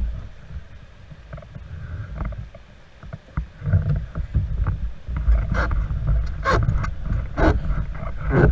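Canoe paddle strokes splashing in river water, about one a second in the second half, over a low rumble of water and wind that gets louder about halfway through.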